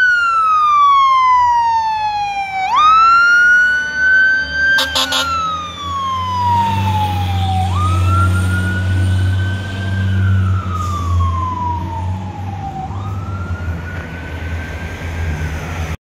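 Fire truck siren wailing, its pitch sliding slowly down and snapping back up about every five seconds. A few short air-horn honks come about five seconds in. From about six seconds the ladder truck's engine rumbles loudly as it drives close past.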